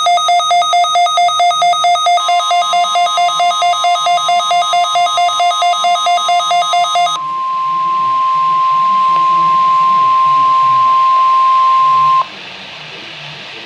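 NOAA Weather Radio alert tones during a required weekly test: a rapid pulsing two-tone beep for about seven seconds. The steady 1050 Hz warning alarm tone comes in about two seconds in and holds alone after the beeping stops, cutting off abruptly near the end and leaving radio hiss.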